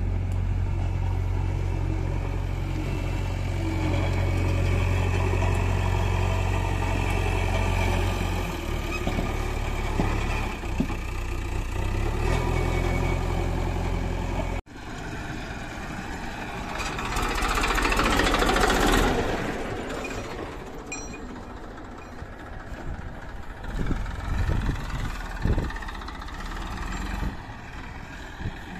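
Diesel engine of a JCB backhoe loader running with a steady, deep, even throb. After a sudden break, a farm tractor pulling a loaded trolley, with a rush of noise that rises and fades and a few knocks near the end.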